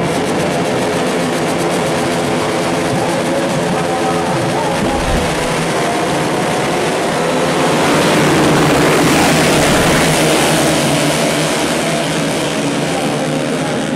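A grid of 150cc four-stroke underbone race motorcycles revving together on the start line, then accelerating hard off the start about five seconds in. Several engines rise in pitch at once, and the sound is loudest a few seconds later.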